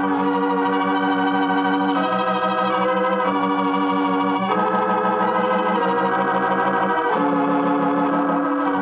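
Organ music: a bridge of held chords with a pulsing vibrato, moving to a new chord every second or so.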